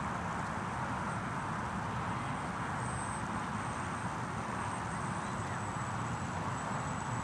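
Steady drone of a distant radio-controlled Yak 55 model airplane in flight, with wind rumbling on the microphone.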